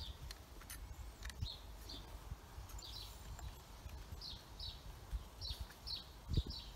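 A small bird chirping over and over in short falling notes, with light clicks and knocks from hand tools on a chainsaw being put back together, and a dull thump near the end.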